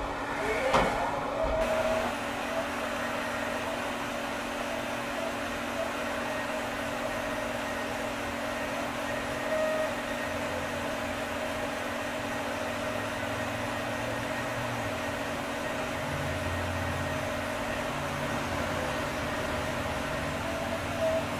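Steady hum of a powered-up CNC milling machine, with two steady tones. In the first second and a half, an end mill is cutting plastic, throwing chips, before the sound changes abruptly to the hum alone.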